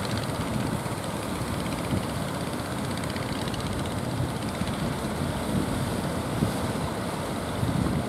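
Strong wind buffeting the microphone over breaking surf, with the steady drone of the outrigger fishing boats' engines underneath.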